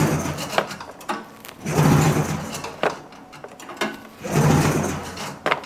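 Recoil starter pulled three times, each pull spinning the 1980 Arctic Cat El Tigre 5000's two-cylinder two-stroke engine over briefly with its spark plugs out, for a spark test after fitting a new CDI. Sharp clicks come between the pulls.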